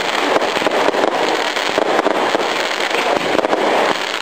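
A long string of firecrackers going off in a rapid, continuous crackle of many small bangs.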